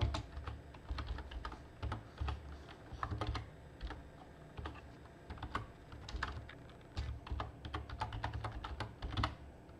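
Typing on a computer keyboard: irregular keystroke clicks in short runs with brief pauses between them.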